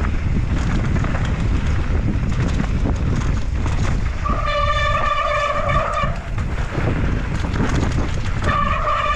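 Wind rushing over the helmet-camera mic and a mountain bike rattling over a rough downhill trail, with two held squeals from the disc brakes, one about two seconds long a little before the middle and a shorter one near the end.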